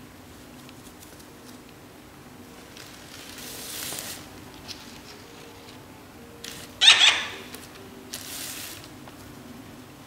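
Short rustling handling noises, three times, the loudest a sharp rustle about seven seconds in, over a faint steady room hum.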